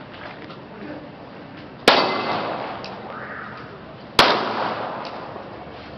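Two handgun shots about two and a quarter seconds apart, each a sharp crack followed by a long fading echo.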